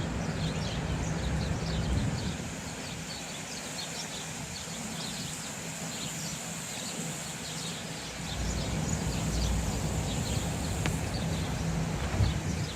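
Sparrows chirping, many short, quick chirps overlapping without a break, over the low rumble and hum of city traffic that swells at the start and again in the second half.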